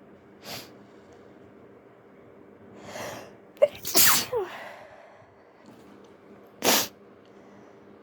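A person sneezing while trying to stifle it. A drawn-in breath builds about three seconds in, then comes a sharp catch and a burst of air about four seconds in, ending in a brief falling vocal squeak. A second short, sharp burst follows near the end.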